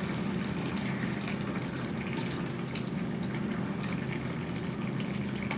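Eggplant and tomato stew simmering in a pan on a gas stove, bubbling and sputtering, with soft plops as chickpeas are tipped into the sauce. A steady low hum runs underneath.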